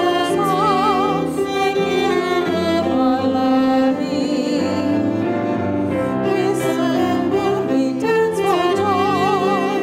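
A woman singing a hymn solo over a steady instrumental accompaniment, holding long notes with vibrato near the start and again near the end.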